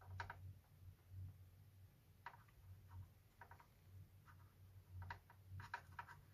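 Faint, irregular light clicks, about seven of them, from small parts and fingers being handled against the opened plastic casing, over a low steady hum.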